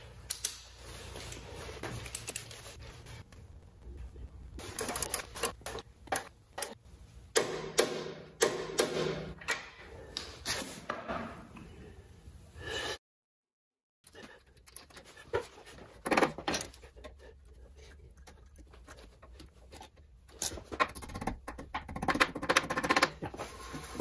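Hand tools on a motorcycle's front end: a ratchet and a torque wrench clicking in quick runs as bolts are tightened, with scattered metal clinks and knocks of the tools. The sound cuts out for about a second halfway through.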